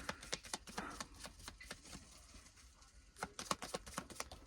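Rapid light clicks and taps: a run of them in the first second and a half, and another short run about three seconds in.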